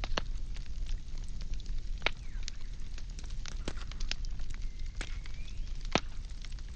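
Firewood burning in a fire, crackling with sharp pops at irregular intervals over a steady low rumble of the flames.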